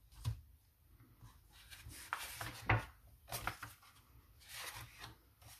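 Pages of a hardcover picture book being turned and pressed flat by hand: several short, soft paper rustles.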